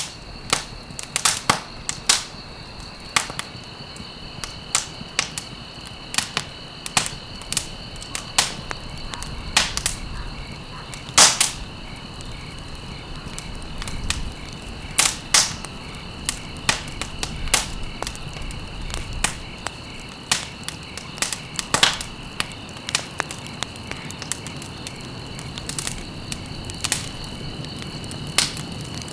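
Wood fire burning in a fireplace, crackling with frequent irregular sharp pops, the loudest about eleven seconds in. A steady high-pitched tone runs underneath.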